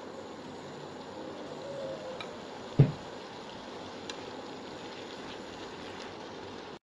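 Mushrooms sizzling steadily in a non-stick frying pan as they are stir-fried. About three seconds in a utensil strikes the pan once with a sharp knock, the loudest sound, and there are a few faint clicks of utensil on pan.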